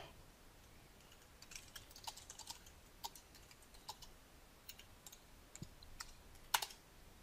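Faint typing on a computer keyboard: irregular keystrokes for several seconds, loudest near the end.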